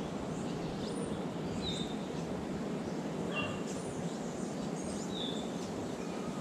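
Birds calling in short chirps that recur every second and a half or so, over a steady background hiss.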